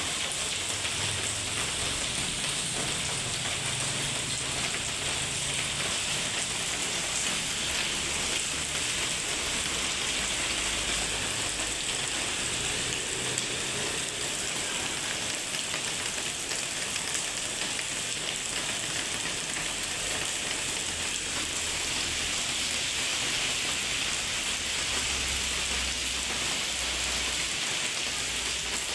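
Heavy rain falling steadily, a dense, even hiss of drops on hard surfaces, with a low rumble coming and going underneath.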